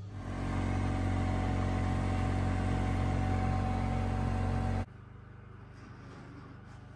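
Small vehicle engine running steadily while towing a trailer loaded with a wood stove over a snowy track. It stops suddenly after about five seconds, leaving quiet room tone with a few faint knocks.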